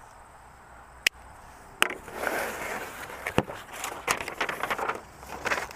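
Paper packing and cardboard box rustling and crinkling as the box is unpacked by hand, with sharp clicks about one and two seconds in and another a little past the middle.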